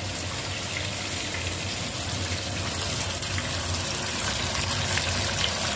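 Flour-dredged chicken deep-frying in a pan of hot oil: a steady sizzle with fine crackling.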